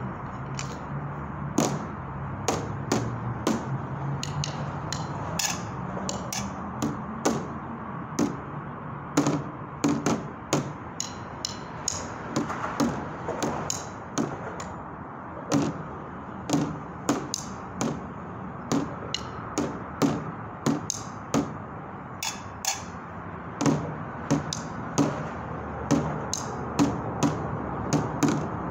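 Wooden drumsticks beating on improvised street percussion, a metal lid and a tub set on concrete, in an uneven rhythm of sharp hits, one or two a second with quick doubled strokes, over a steady background noise.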